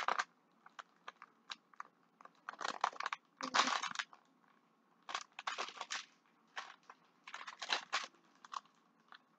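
Plastic cheese package crinkling and rustling by hand in irregular bursts as it is worked open.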